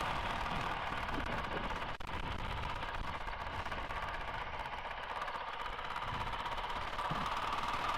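Honda CRF450RL's single-cylinder four-stroke engine running at a steady cruise, with a rushing noise over it; the level eases slightly in the middle.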